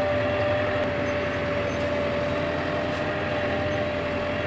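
Skid steer loader's engine running steadily from inside the cab, with a steady high whine over the engine noise.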